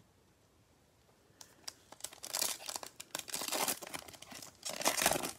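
Gloved hands tearing open the shiny foil wrapper of a Panini Prizm basketball card pack, crinkling and ripping. It starts about a second and a half in, with the loudest rips near the end.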